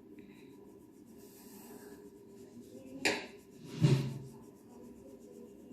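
Plastic crayon rubbing on paper while colouring, faint and steady, with two louder knocks about three and four seconds in.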